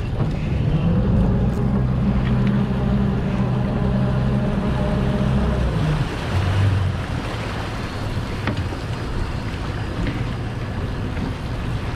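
Bank of Suzuki outboard motors on a sport-fishing boat running under throttle, with a steady engine note over the rush of water and wind. About six seconds in, the engine note drops and changes as the throttle eases.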